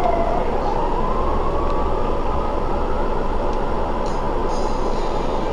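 Double-decker bus driving, heard from its top deck: a steady rumble of engine and road noise, with a whine that climbs in pitch over the first few seconds and then levels off.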